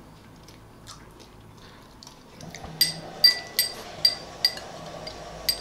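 Metal spoons clinking against ceramic bowls during a meal: after a quiet start, a run of about six short ringing clinks, a few per second, begins about halfway through.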